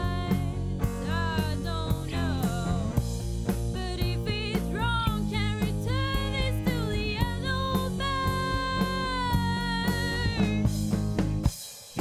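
Rock song played by a band: drum kit and bass under a wavering sung melody. The bass and drums drop out briefly near the end.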